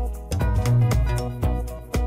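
Upbeat instrumental background music with a steady beat, pitched instrument notes and a strong bass line.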